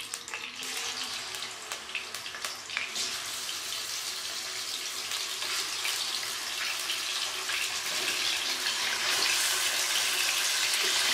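Raw chicken pieces going into hot oil in a karahi, sizzling with sharp crackles and spits; the sizzle grows louder as more chicken is added.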